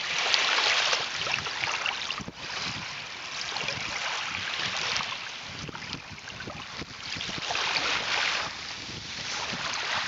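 Small waves of a calm sea lapping and washing up on a shell-and-pebble shore, the wash swelling and fading every few seconds.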